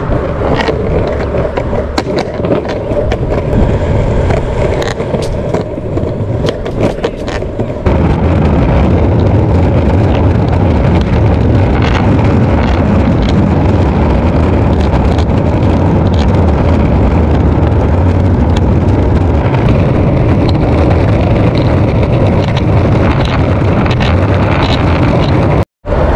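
Skateboard wheels rolling over city pavement: a loud, steady low rumble. For the first several seconds it is lighter, with many scattered clicks; about eight seconds in it grows louder and continuous.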